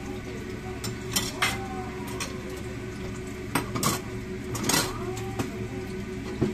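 Metal kitchenware clinking as a steel ladle and pot lid knock against steel pots and a wok: about six sharp clinks, some with a short ring.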